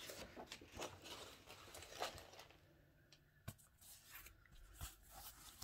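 Near silence, with faint rustling and a few soft separate clicks as a rolled TPE foam yoga mat is handled and unrolled on carpet.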